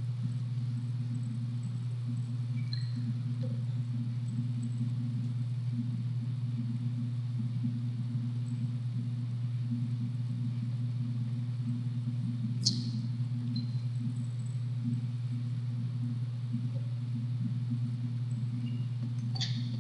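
Steady low electrical hum, with a single sharp click about two-thirds of the way through.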